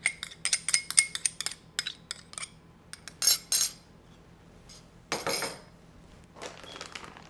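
A metal spoon clinks and scrapes against a small glass dish and a glass mixing bowl in a quick run of sharp clicks, followed by two brief louder noises a few seconds in.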